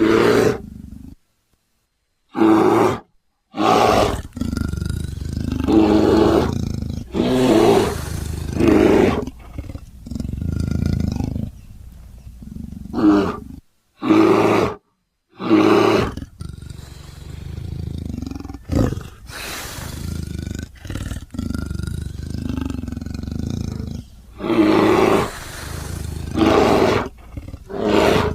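Bear roars and growls, from grizzly, cave bear and angry bear recordings, edited together into a hybrid creature's calls. About a dozen separate roars of up to a couple of seconds each, broken by a few sudden cuts to silence.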